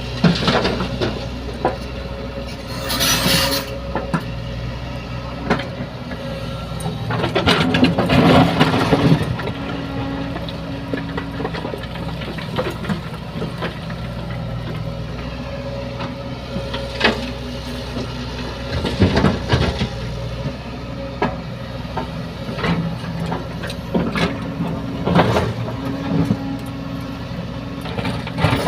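Heavy diesel engine of the loading machinery running steadily. About three seconds in there is a short hiss, and around eight seconds in a louder noisy burst lasts about two seconds. Several shorter knocks follow near the end.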